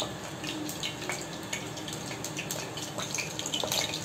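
Hot oil in a tawa sizzling and crackling as marinated chicken pieces go in, with a spoon scraping against a glass bowl.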